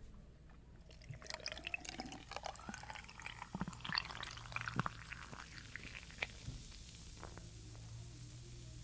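Malt drink poured from a bottle into a glass with ice, the gurgle rising in pitch as the glass fills, with many small crackles. After about five seconds it settles to a faint fizz.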